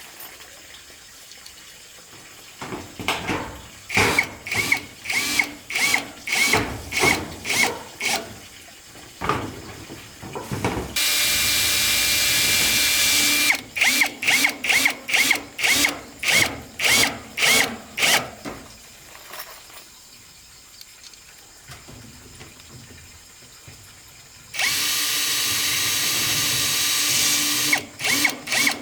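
Woodworking with tools: runs of rhythmic strokes, about two a second, each with a short squeal, twice broken by a power drill running steadily for a few seconds.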